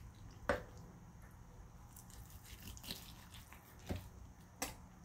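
Knife cutting into a slow-cooked bone-in spiral ham sitting in its juices: quiet cutting sounds with a few soft clicks, the sharpest about half a second in.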